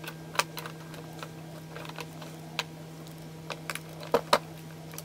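Scattered light clicks and taps of a fingerboard's deck and wheels on a wooden tabletop, with a couple of sharper clacks about four seconds in, over a steady low hum.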